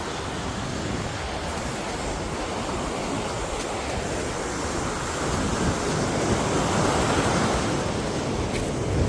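Steady rushing of wind and water, with gusts of wind rumbling on the microphone; it swells a little past the middle.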